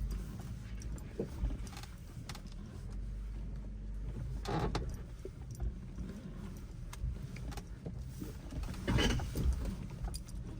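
Off-road 4x4 engine running low and steady while crawling through a rock garden, with scattered knocks and two louder swells about halfway through and near the end.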